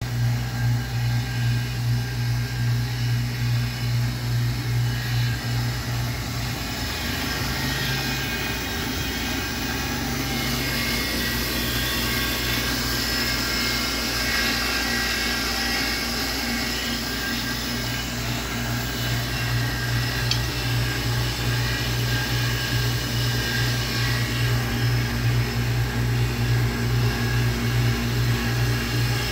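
Van Norman 304 brake drum lathe running: its electric motor and spindle drive give a steady low hum with a slight pulsing flutter.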